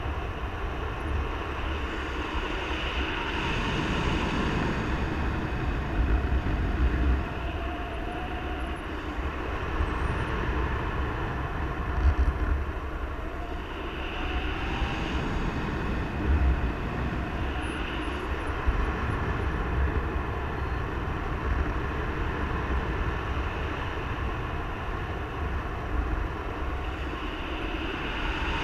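Airflow rushing over the camera microphone in paraglider flight: a steady wind noise with a deep rumble that swells and eases every few seconds.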